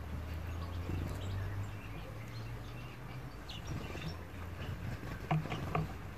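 Faint bird chirps over a low steady hum, with a few sharp clicks about five seconds in as a European goldfinch cracks sunflower seeds in its beak.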